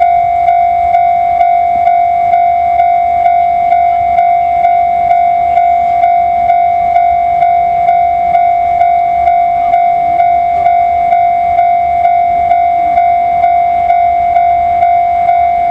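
Japanese railway level-crossing warning bell ringing steadily, a high electronic ding repeating about twice a second. A faint low rumble sits underneath.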